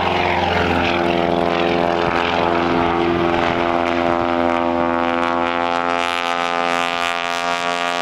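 Aerobatic biplane's piston engine and propeller giving a steady, even drone, easing slightly lower and a little quieter in the second half.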